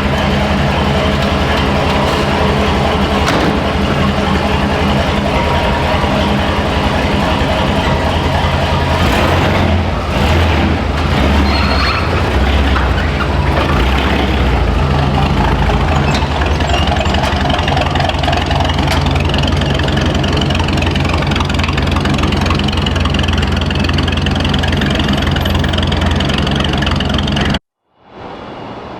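An engine running steadily with a low hum, cut off abruptly near the end.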